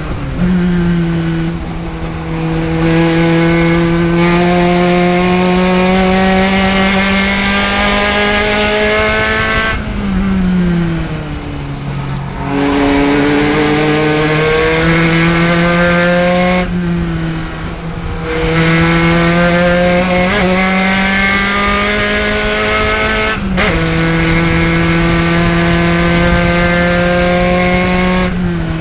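Spec Racer Ford Gen3's Ford 1.6-litre four-cylinder engine at racing speed, its revs climbing slowly and steadily for long stretches. The pitch dips and climbs back about ten seconds in, then breaks again near seventeen seconds and at about twenty-three seconds as the driver lifts and changes gear through the H-pattern gearbox.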